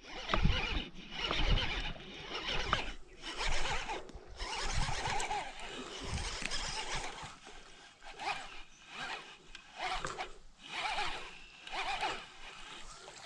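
Baitcasting reel being cranked, a run of whirring bursts about a second apart, as a hooked largemouth bass is reeled in.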